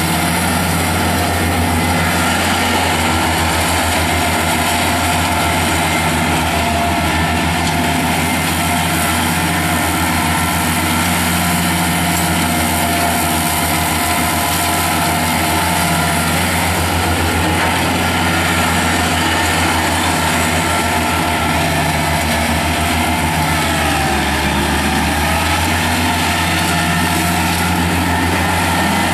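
Kubota B2710 compact tractor's three-cylinder diesel engine running steadily while driving its 72-inch belly mower deck through grass. The pitch dips briefly and recovers late on.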